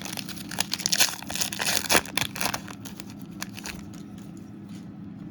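Foil trading-card pack wrapper being torn open and crinkled: dense crackling and tearing that dies down after about three and a half seconds.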